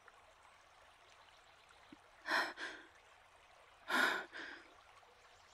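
A woman's breathing: two breathy sighs, about two seconds in and again about four seconds in, each trailing off into a shorter, weaker breath.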